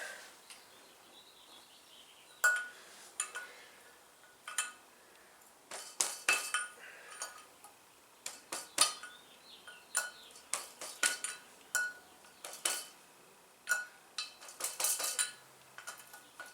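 Small steel parts clinking and tapping together at irregular intervals, each clink with a short metallic ring. The parts are valve springs, seats, retainers and a socket being handled and set on the cylinder head during a valve spring install.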